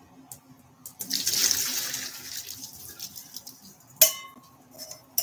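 Hot noodle cooking water poured from a saucepan through a mesh strainer into a stainless steel sink, a splashing gush that lasts about two seconds and tails off, followed by a single sharp clank.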